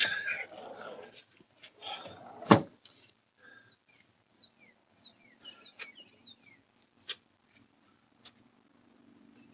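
Scuffling at a house door as a dog is pushed through, then the door shutting with a single loud bang about two and a half seconds in. Short chirps and a few light clicks follow.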